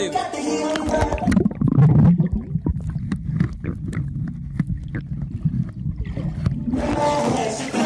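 Muffled underwater sound picked up by a camera submerged in a swimming pool: a low rumble of moving water with many small clicks and pops from bubbles. Music with singing plays in the first second and a half and again near the end.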